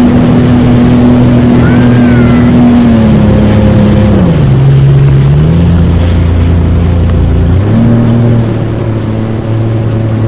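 Jet ski engine running under way, with a steady rush of wind and water. The engine pitch drops about three to four seconds in, then rises again in steps.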